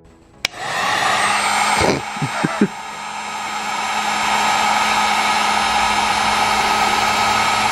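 Electric heat gun switched on with a click, then running with a steady whir and hum, with a few knocks and a brief dip a little after two seconds. It is heating solder-seal heat-shrink connectors on extended wires.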